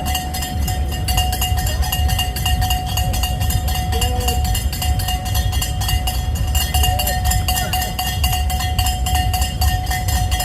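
Cowbells rung rapidly and without a break along a running-race course: a fast, even clatter of strikes with a steady ringing tone, over a low rumble.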